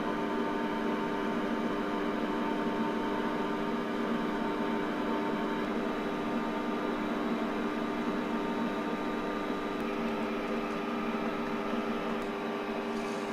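A machine running with a steady hum of several fixed tones over an even whirring noise.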